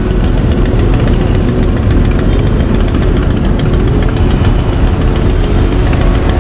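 Many motorcycle engines running together in a slow-moving mass of bikes, a loud, steady engine noise with no revving.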